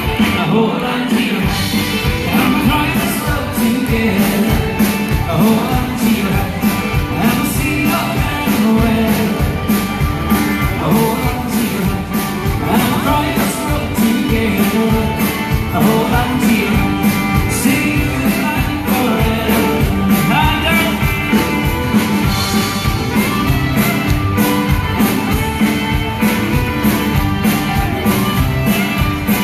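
Live country band playing an upbeat song with a steady beat: acoustic and electric guitars with a man singing lead.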